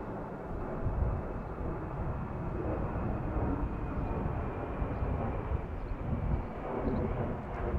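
Loaded grain hopper wagons at the tail of a freight train rolling away over the rails: a steady rumble of wheels on track, with a faint thin high squeal of steel wheels in the middle.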